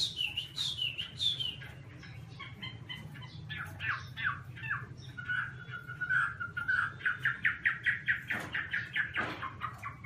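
Chinese hwamei (Garrulax canorus) singing a varied song. It opens with loud whistled downward sweeps, carries on through a wavering held phrase, and ends with a fast run of short repeated notes.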